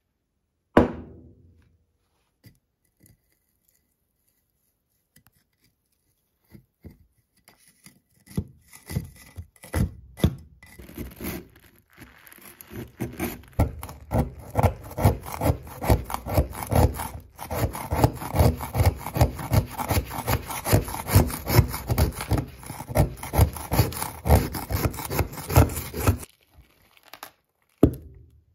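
A pointed metal tool scraping thick, crusted rust off an old axe head in quick repeated strokes, about three a second, that grow steady and dense about halfway in. There is a sharp knock about a second in and another near the end.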